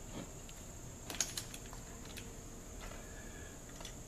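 A few light clicks and taps of small hand tools and metal parts being handled at a chainsaw's ignition coil, with a quick cluster of them about a second in.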